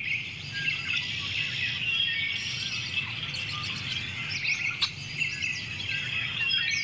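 A chorus of many birds chirping and calling over one another, with one sharp click about five seconds in.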